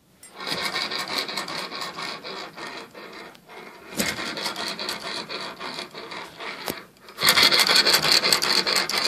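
Hand-turned homemade steam engine: the flywheel spins and the piston, a threaded carriage-bolt end, rasps in and out of its metal cylinder tube. The scraping dips twice briefly and is louder over the last two seconds.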